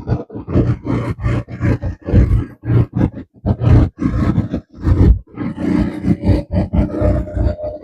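Strong wind buffeting the microphone in rapid, uneven gusts, over the steady hum of an ATV engine.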